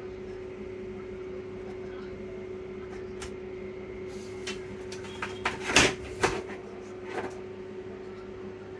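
A steady low electrical hum, with a few sharp clicks and knocks of handling on a workbench a little past the middle; the loudest knock comes about six seconds in.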